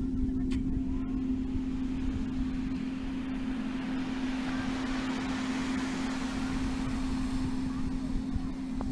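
Wind buffeting the microphone with a low rumble, over the hiss of small waves washing onto a sandy beach, which swells about halfway through. A steady low hum runs underneath.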